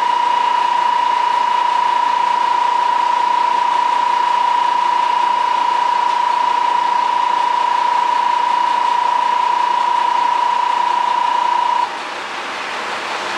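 Station departure buzzer sounding one steady high tone that cuts off suddenly near the end, signalling the train is about to leave. Underneath, the steady running of the MRT300 diesel railcar waiting at the platform.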